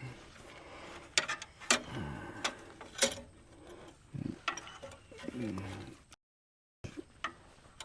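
Scattered metal clicks and knocks as a steel power steering line is pushed and wiggled into place under a truck, with a few low grunts between them.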